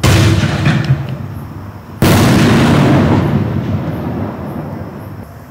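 Black Cat Neon Diablo 5-inch, 60-gram consumer aerial shells going off: two loud booms about two seconds apart, each dying away in a long rolling echo.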